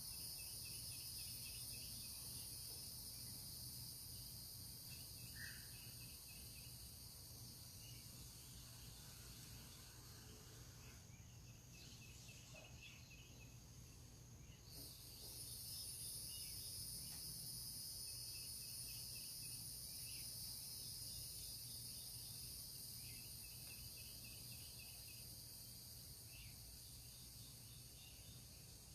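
Faint chorus of insects such as crickets: a steady high-pitched shrilling that drops out for about four seconds near the middle, with repeated short trains of lower chirps.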